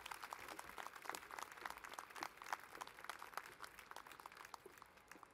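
Audience applauding, faint, with the clapping thinning out and dying away near the end.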